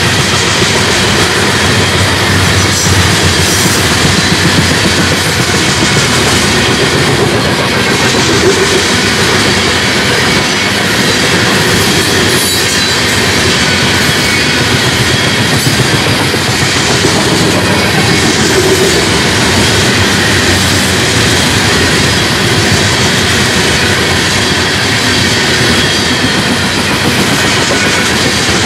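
Union Pacific freight train cars rolling past, their wheels clattering steadily over the rails.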